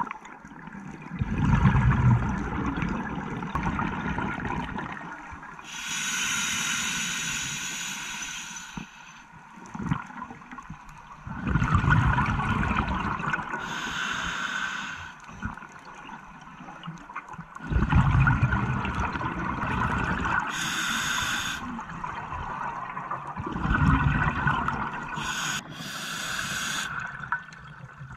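Scuba regulator breathing underwater: a hissing inhale through the regulator, then a low rumble of exhaled bubbles. This repeats about four times, one breath every six seconds or so.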